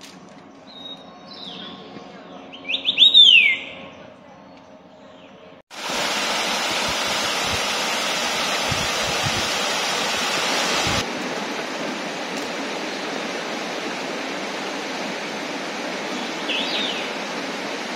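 Forest birds calling, the loudest a quick, falling call about three seconds in. About six seconds in, the sound switches abruptly to the steady rush of stream water spilling over a small stepped weir, which goes on a little quieter after about eleven seconds, with one short bird chirp near the end.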